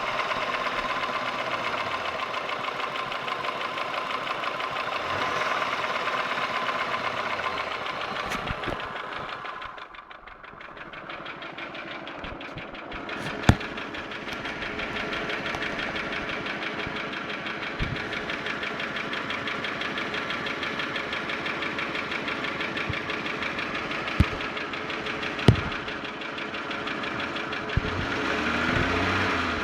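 Holden Commodore VY's 3.8-litre Buick 3800 Series II V6 running with a fast, regular tick or knock, the noise the owner cannot place as valve train (lifters, pushrods, rockers) or bottom end (connecting rod bearing). It grows quieter for a couple of seconds about a third of the way through, and a few sharp single clicks stand out later on.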